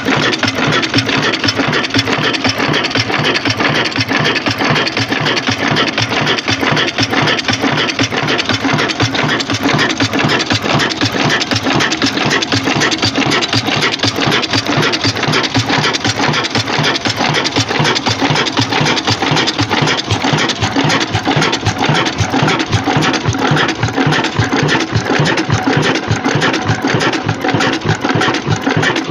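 Old stationary diesel engine running steadily, with a fast, even beat.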